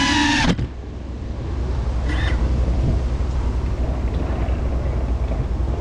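Background music cuts off abruptly about half a second in, leaving a steady low rumble of wind buffeting the camera's microphone.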